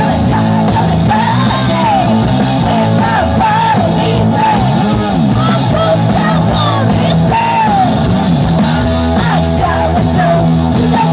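Live punk blues rock from a guitar-and-drums duo: electric guitar and drum kit playing with a woman singing and yelling over them.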